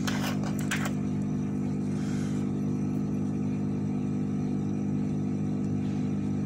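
A steady mechanical hum, like a bench fan or motor running, with a few light clicks in the first second.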